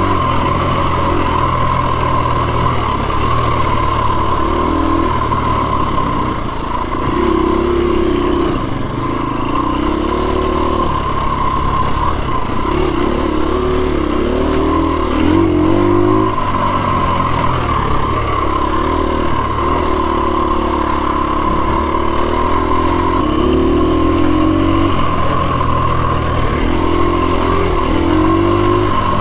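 2017 KTM 250 EXC-F's single-cylinder four-stroke engine being ridden, its revs rising and falling again and again with the throttle, over a low rumble. A steady high whine runs under it throughout.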